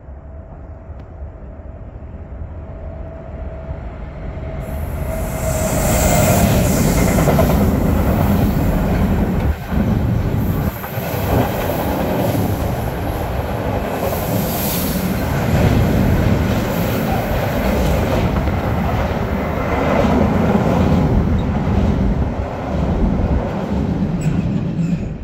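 Freight train approaching and passing close by, its car-transporter and covered wagons rumbling and clattering over the rails. It grows louder over the first five seconds and stays loud, then cuts off suddenly at the end.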